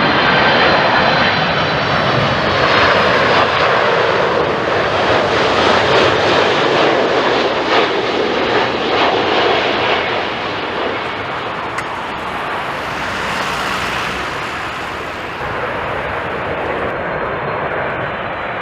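Jet airliner passing close by with its engines running loud: a dense rushing roar with a thin high turbine whine at first, easing off somewhat in the second half.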